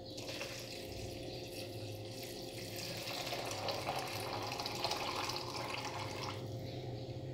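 Chicken broth poured from a mug into a blender jar of peanuts and chiles: a steady stream of liquid splashing into the jar.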